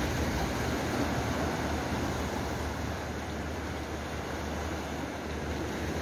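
Steady rush of sea waves washing among shore rocks, with a low rumble underneath.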